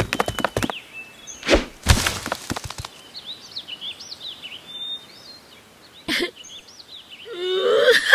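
Cartoon sound effects: a few thuds in the first two seconds, then birds chirping. Near the end a cartoon character starts a rising, wavering wail of distress.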